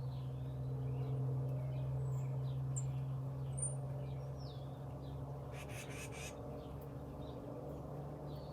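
Small birds chirping and calling over a steady low hum, with a brief harsh, noisy sound about six seconds in.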